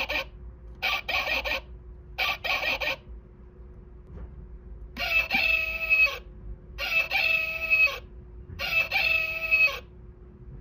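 Recorded rooster sounds from an animal-call wall clock's hourly chime. Three short bursts of quick calls come first, then three crows of about a second each from about halfway through.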